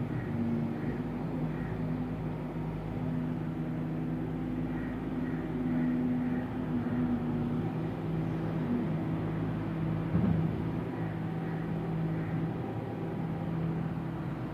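Doosan DX140 wheeled excavator's diesel engine running under load as it digs and swings, the engine note shifting as the hydraulics work. A short knock about ten seconds in.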